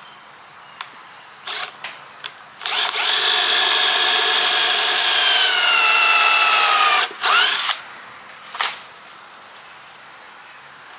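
Cordless drill boring into a thick wooden plank. A few short trigger blips, then about four seconds of steady drilling whose motor pitch sags as the bit bites into the wood. Then two short bursts.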